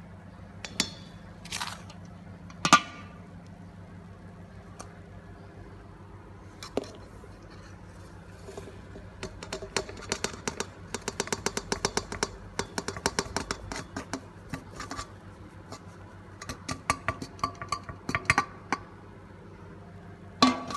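Stainless-steel mixing bowl knocking and clinking against the rim of a stand-mixer bowl as flour is tipped and tapped out into the batter. There are a few separate knocks in the first three seconds, then fast runs of light metal taps through the middle and again later, and a sharp knock near the end.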